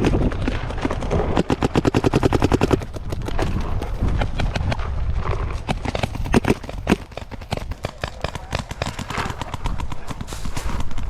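Paintball markers firing: fast, even strings of shots for the first three seconds or so, then scattered single shots and short bursts. A low rumble of wind on the microphone runs underneath.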